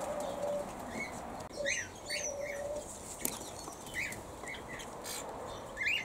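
Aviary birds giving short, scattered chirps, with a couple of brief sharp sounds in between.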